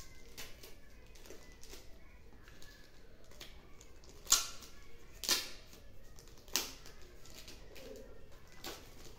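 Paper packaging crinkling and rustling as a white accessory packet is picked open by hand. There are small crackles throughout and three louder crinkles or tears, about four, five and six and a half seconds in.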